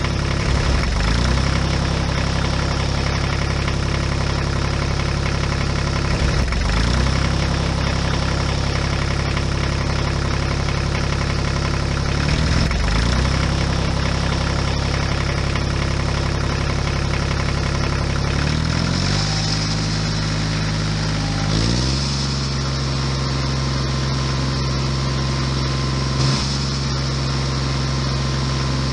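Diesel tractor engine running steadily at idle. It dips briefly in pitch every six seconds or so, and about two-thirds of the way through its note changes twice.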